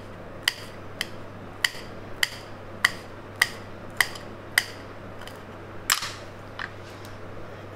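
Small kitchen knife chopping a green chilli on a glass cutting board: sharp clicks of the blade striking the glass, about two a second, ending with a louder knock about six seconds in.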